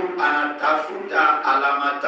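Voices singing unaccompanied, a cappella, with no instruments.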